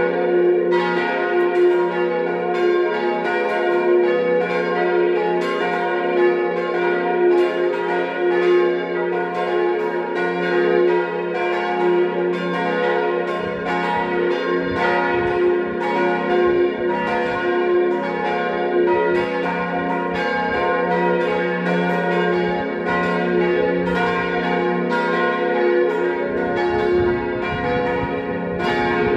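Peal of four church bells tuned C, B-flat, A-flat and F, ringing together with overlapping, continuous strikes at a steady level.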